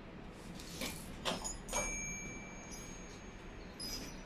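A few metallic knocks and clinks from a steel elevator door frame being handled, one leaving a ringing tone that hangs on for about a second and a half.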